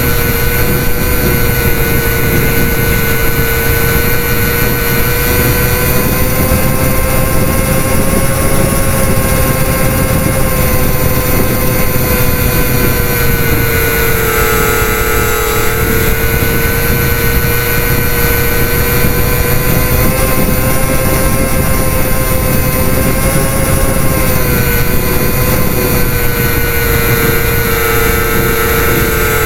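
Parkzone Micro Mosquito RC plane's twin electric motors and propellers whining steadily in flight, heard close up from a camera mounted on its canopy. The pitch dips briefly about halfway through and again near the end.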